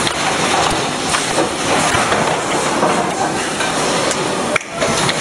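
Automatic chocolate snack-pack packing machine running: a loud, steady mechanical din with scattered knocks and air hiss from its pneumatic cylinders. The sound drops out for a moment near the end.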